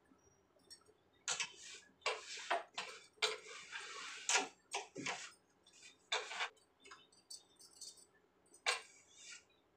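Plastic jars and containers knocking, clattering and scraping against a wooden kitchen shelf as they are moved, mixed with a cloth rubbing, in irregular bursts for the first several seconds and once more near the end.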